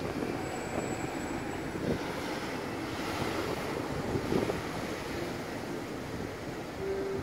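City bus driving past and pulling away, mixed with cars going by: steady road traffic noise with a couple of brief louder swells.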